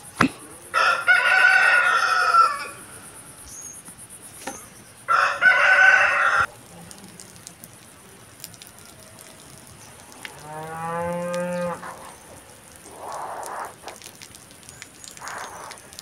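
Sheep bleating: two loud bleats in the first six seconds, then a lower, deeper bleat about ten seconds in, and a couple of faint calls near the end.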